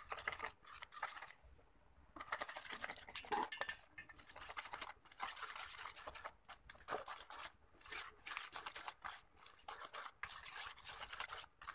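Wire whisk scraping and rattling against a stainless steel bowl in quick repeated strokes with brief pauses, stirring flour into an egg-yolk mixture to make cake batter.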